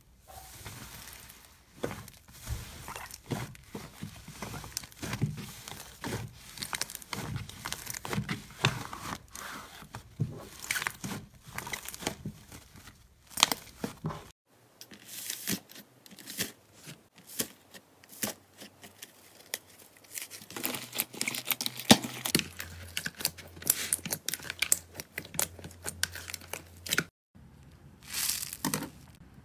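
Slime being pressed and kneaded by hand: a long run of sticky crackles, pops and tearing sounds. The pink slime is first pressed flat in a bowl, then a fluffy pink slime is pulled and squeezed. Near the end a yellow foam sponge is squeezed, giving a short crinkling crunch.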